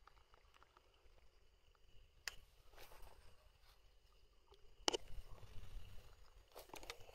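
Faint handling noise from a person moving with fishing gear through tall grass: soft rustling and scattered clicks, with a sharper click about five seconds in and a few more near the end, over a low rumble.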